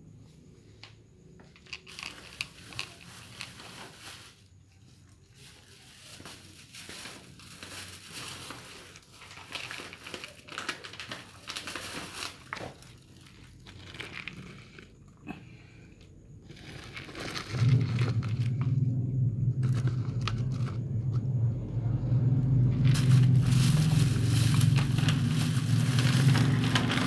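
Cats eating from plastic bowls: irregular crunching and clicking as they chew their food. About two-thirds of the way in, a steady low hum starts and grows louder, becoming the loudest sound.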